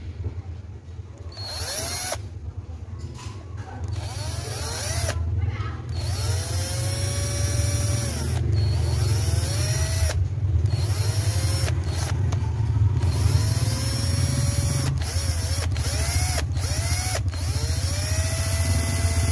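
Makita cordless drill run in short, stop-start bursts with its bit pressed against a thin-walled metal gas canister. The motor whines up in pitch each time the trigger is squeezed, starting about a second and a half in.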